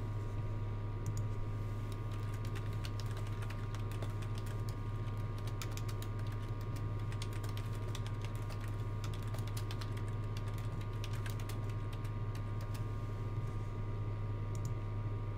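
Typing on a computer keyboard: irregular runs of quick keystroke clicks, thinning out near the end, over a steady low electrical hum.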